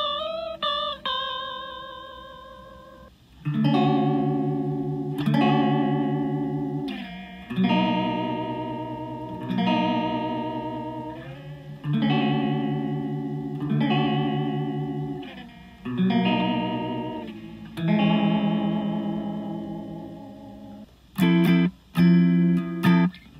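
Electric guitar played through a Deadbeat Sound Wet Dreams chorus pedal with every knob at maximum: a few single notes, then chords each left ringing about two seconds, all with a strong, fast warble in pitch. Near the end, short choppy chords begin at a subtler setting.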